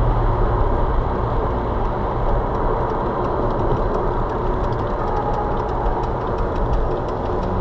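Steady road noise inside a car cruising on a motorway at about 60 mph: tyre and wind rumble with the engine underneath.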